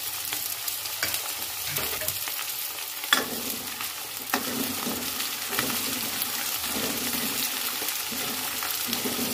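Chopped onions frying in hot mustard oil in a kadhai, a steady sizzle, while a steel spoon stirs them and knocks against the pan now and then, loudest about three seconds in.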